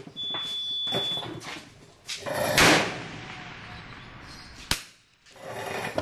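A single rifle shot a little over two seconds in, dying away quickly, followed near the end by a sharp metallic click.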